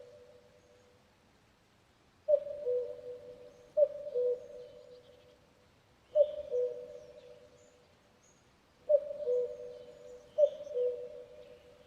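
Common cuckoo calling its two-note "cuck-oo", a higher note dropping to a lower one, five times at uneven intervals after a brief pause, each call ringing on after it. Faint chirps of other small birds sit behind it.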